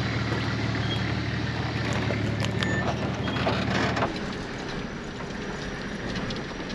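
A four-wheel-drive vehicle's engine running steadily under load while driving off-road, with a few knocks and clatters from the rough track; about four seconds in, the engine hum drops away.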